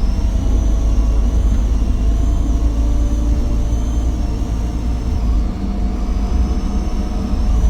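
Diesel engine of an Optare Versa bus, a Daimler OM934 5.1-litre with an Allison 2100 automatic gearbox, pulling under way: a low engine drone with a high turbo whine that wavers up and down in pitch. Both dip briefly a little past halfway, then pick up again.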